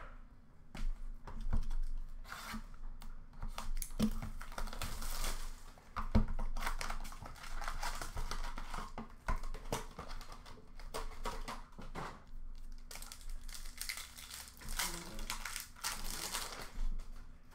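Foil trading-card pack wrappers crinkling and tearing as hockey card packs are ripped open and the wrappers crumpled, with the cards handled in between. A couple of sharp knocks come about four and six seconds in, the second the loudest.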